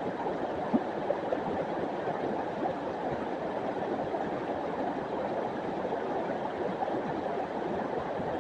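River water rushing steadily, with a few brief splashes about a second in.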